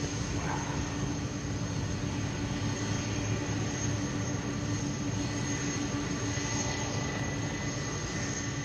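Jet engines of a Boeing 747-400 freighter running steadily: a constant whine over a broad rushing noise.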